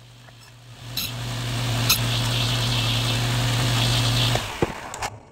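Table saw running, with a walnut board fed across the blade from about a second in to cut a groove along its edge. The cutting noise holds steady for a few seconds, then dies down near the end as the cut finishes.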